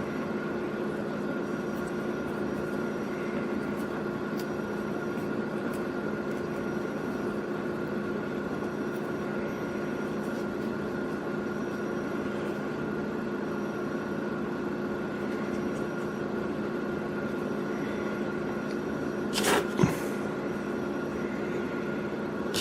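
Steady mechanical hum of a running kitchen appliance motor, holding several constant tones, with a couple of short knocks near the end.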